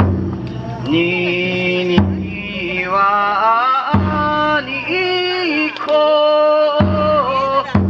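Bon odori ondo: a lead singer's long, wavering, ornamented vocal lines over taiko drum strokes every two to three seconds.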